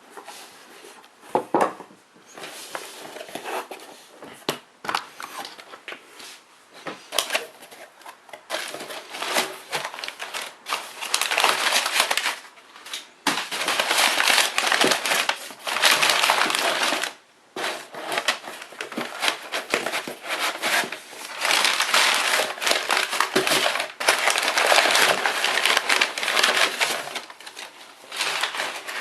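Packaging being handled and opened by hand: a run of crinkling and crushing, in long loud stretches from about ten seconds in, broken by short pauses.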